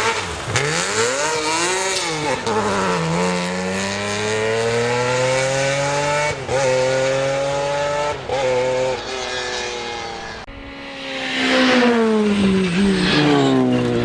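Rally car engine accelerating hard. Its pitch climbs and dips briefly at gear changes about six and eight seconds in, then fades away. Near the end another rally car engine comes in louder and falls in pitch as it passes.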